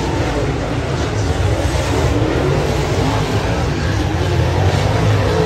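Dirt late model race cars' V8 engines running around a dirt oval, heard from the grandstand as a steady, loud engine noise whose pitch wavers up and down as the cars circle.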